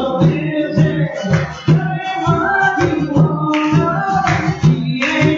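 Live song: a singer with acoustic guitar, and conga drums keeping a steady beat of about two strokes a second.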